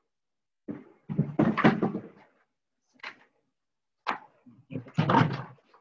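Sheets of wallpaper rustling as they are handled, and a plastic paper trimmer being set down and slid on a wooden table with knocks. The sounds come in two bursts, about a second in and again about four seconds in.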